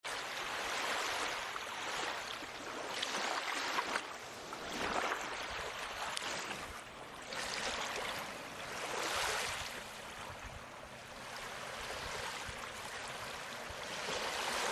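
Rushing water, a steady wash that swells and eases every couple of seconds.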